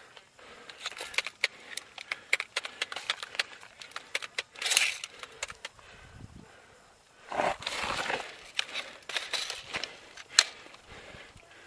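Irregular crackling and snapping clicks with two longer bursts of rustling, from footsteps and movement through dry brush, plus one sharp snap near the end.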